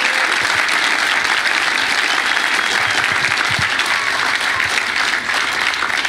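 Audience applauding steadily, thinning into scattered separate claps near the end.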